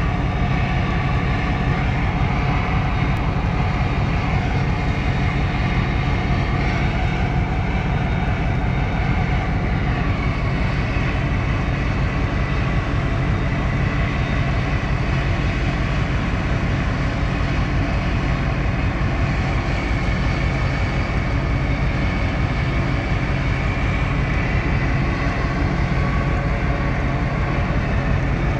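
A large engine running steadily, a loud even drone with a low hum that does not change.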